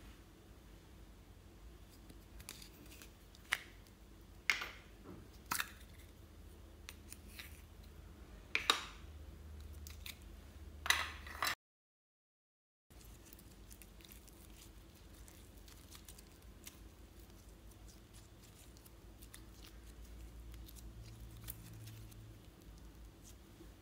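Glossy slime and floam being squeezed and stretched by hand, giving sharp clicks and pops every second or so in the first half. Near the middle the sound cuts out completely for about a second, then the handling goes on more quietly with faint ticks.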